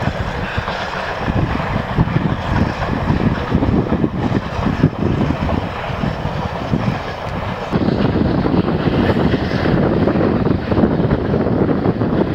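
Steam locomotive No. 6046, a USATC S160 2-8-0, working a passenger train past at a distance, its exhaust mixed with wind buffeting the microphone; the low rumble grows louder about eight seconds in.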